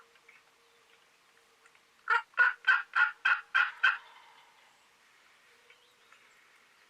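Wild turkey gobbler gobbling once, a rapid rattle of about seven notes lasting just under two seconds, starting about two seconds in.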